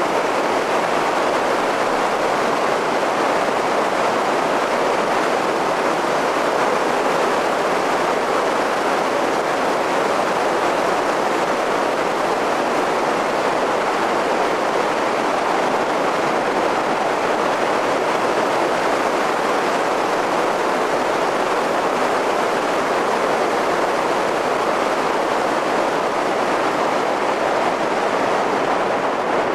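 Steady wind rush and road noise over a roof-mounted camcorder's microphone on a car driving at speed, an even hiss with no engine note coming through.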